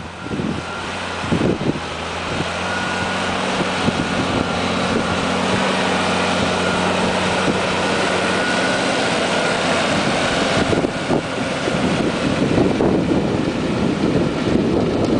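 Deutz Agrotron M625 tractor engine running steadily under load while pulling a five-furrow reversible plough. Wind buffets the microphone at the start and again from about eleven seconds on.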